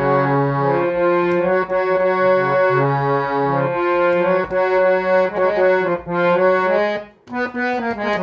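Harmonium playing a Rajasthani Holi dhamal folk melody, reedy sustained notes moving step by step, with the sound breaking off briefly about seven seconds in.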